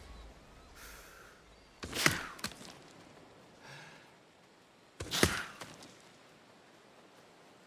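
Blowgun dart sound effect played twice, about three seconds apart: each time a faint breathy puff, then a quick whoosh ending in a sharp thunk.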